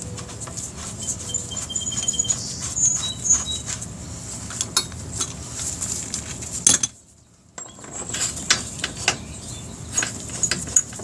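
Scattered light clicks and taps of parts being handled while the rear axle and wheel of a Suzuki Hayabusa are fitted, with birds chirping in the background. The sound cuts out for under a second a little past the middle.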